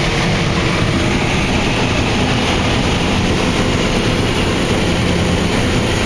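Claas Lexion 595 combine harvesting corn, heard from inside the cab: engine and threshing machinery running at a steady, unbroken level.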